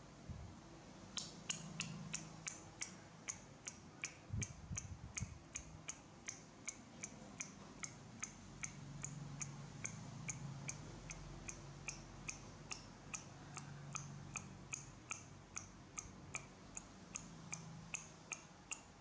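Steady, evenly spaced ticking: sharp clicks about three a second, over a faint low hum.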